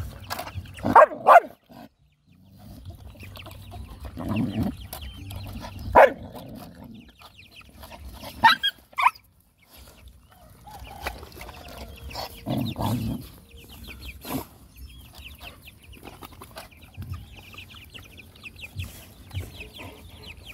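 Several dogs eating together from a metal basin, lapping and chewing, with sharp knocks against the bowl. A few short animal calls are heard, loudest about a second in, at about six seconds, and twice around eight to nine seconds.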